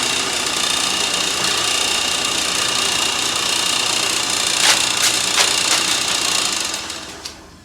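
Power tool running steadily with a faint high whine, a few sharp knocks about five seconds in, then fading out near the end.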